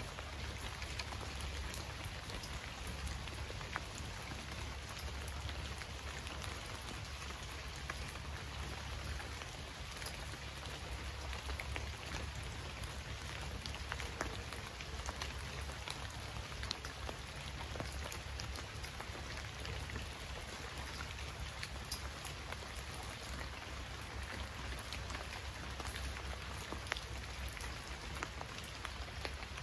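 Steady rain: a continuous hiss of falling rain with individual drops ticking now and then, over a low steady rumble.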